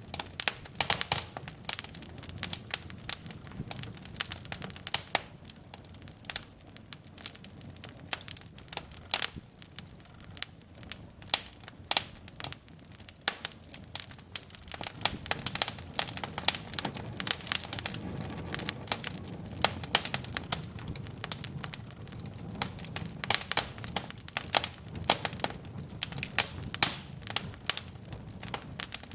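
Wood logs burning in a fireplace: irregular sharp crackles and pops over a low rumble of flame, the rumble growing stronger about halfway through.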